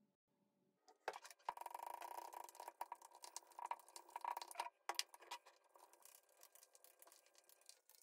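Small clicks and scrapes from handling a hair-colour mixing bowl and a product bottle, most likely shampoo going into bleach paste. They start about a second in and come thickest over the next few seconds.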